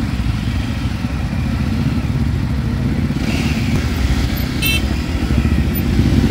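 Several Royal Enfield single-cylinder motorcycles running at low speed, their engines idling and pulling away in a steady low rumble. A brief high-pitched beep cuts in about two-thirds of the way through.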